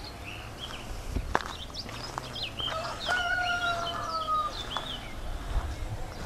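A rooster crowing once, a long held call of about a second and a half starting about three seconds in, over small songbirds chirping and twittering. A sharp click a little over a second in.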